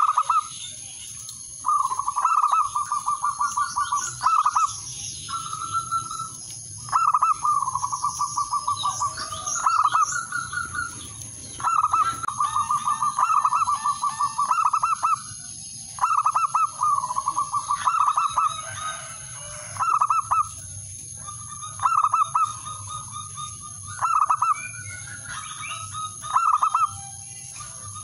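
Male zebra dove (perkutut) singing its rival-calling song: phrase after phrase of rapid staccato coos, each ending in one or two louder, stressed notes, with short pauses between phrases.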